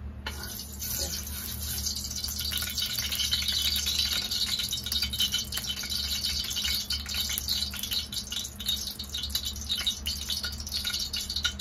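Hot cooking oil sizzling and crackling in a wok, a dense spitting crackle that starts suddenly just after the start.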